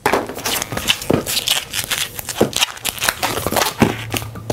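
An inflated 260 latex twisting balloon rubbed and squeezed between the hands: irregular squeaky rubbing and crinkling, with a few short squeaks.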